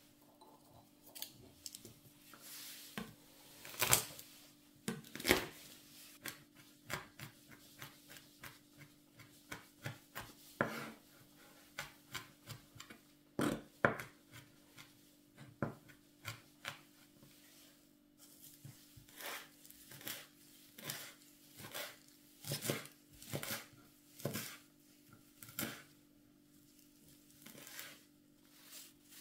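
Chef's knife chopping garlic and then fresh herbs on a bamboo cutting board: irregular, quick taps of the blade on the wood, some louder than others, over a faint steady hum.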